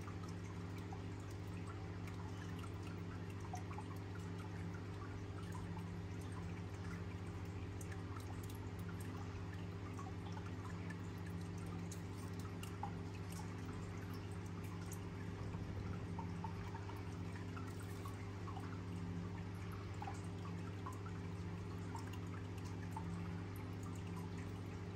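A steady low hum, with faint small ticks scattered through it.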